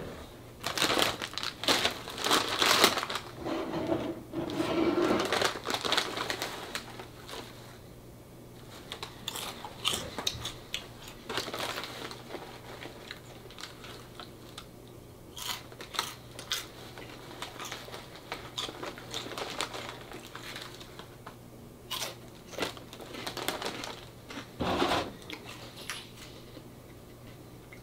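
Potato chips being crunched and a chip bag crinkling, in irregular crackly bursts that are busiest in the first six seconds and scattered after, over a steady low hum.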